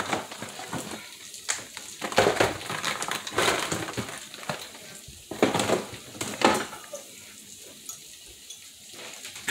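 Rice frying in oil in a stainless steel saucepan, sizzling steadily with uneven louder swells and crackles for the first several seconds, then settling to a softer sizzle.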